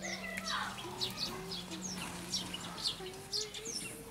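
Small birds chirping in many quick, short, high notes over a steady low hum.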